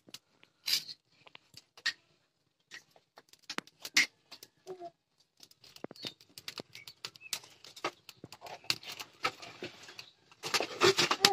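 Wood fire in a clay chulha crackling, with irregular sharp pops under an iron kadhai of heating oil. The pops come sparse at first, then grow denser and louder near the end.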